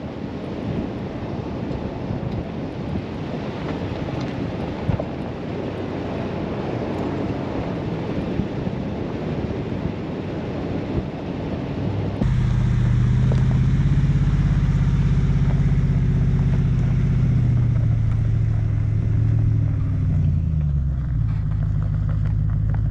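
Pickup truck on the move. First comes rushing wind and road noise. After an abrupt cut about halfway through, the engine's steady hum takes over, and its pitch drops near the end as the truck slows.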